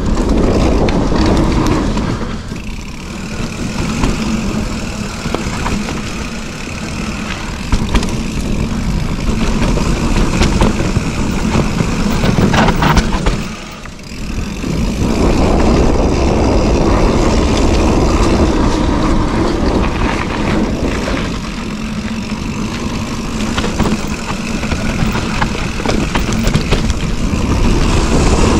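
Mountain bike descending a dirt singletrack: a loud, rushing noise of wind on the bike-mounted microphone and knobby tyres rolling over dirt, with frequent small rattles and knocks from the bike over bumps. The noise drops away briefly about halfway through, then comes back.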